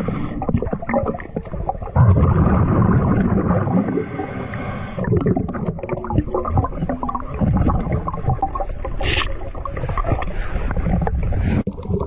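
A boy making loud, drawn-out groaning and moaning vocal noises rather than words.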